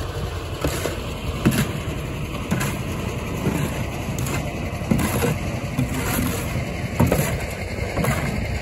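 Shovel scraping through wet concrete in a steel wheelbarrow and dumping it into a wooden form, an irregular scrape-and-slap every second or two, over a steady low rumble.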